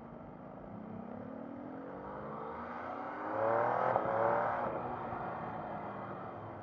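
MV Agusta Brutale Rosso 800's three-cylinder engine accelerating, heard from on the bike: its note rises steadily in pitch for about three seconds to its loudest point, then eases off when the throttle closes, with wind rushing past.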